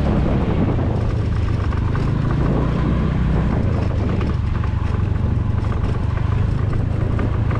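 Motor scooter's engine running steadily while riding a bumpy dirt track. It eases off as the scooter slows, the engine note dropping a little after about three seconds, with light rattles from the rough ground.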